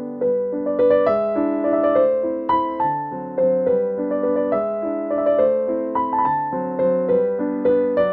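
Background piano music: a gentle melody of struck notes, each ringing and fading, with a few notes a second over sustained lower chords.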